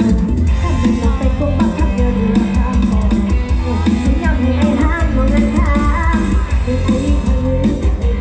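Loud dance music with a singer over heavy, pounding bass, played through a rot hae sound truck's speaker stack.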